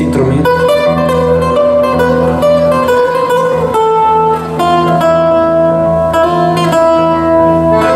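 Live folk band playing an instrumental passage: strummed acoustic guitars under long held accordion notes that change every second or so, with a brief drop in the playing about halfway.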